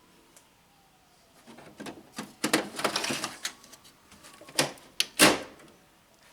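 Plastic parts of a Xerox WorkCentre laser printer being handled: a printer cartridge scrapes and clatters as it slides into place for about two seconds, then a knock, a click and one loud sharp snap as it seats or the cover latches.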